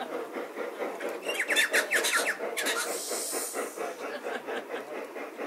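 Large-scale garden model steam train running, with a rhythmic chuffing sound. A quick run of high chirps comes about a second in, and a short hiss near three seconds.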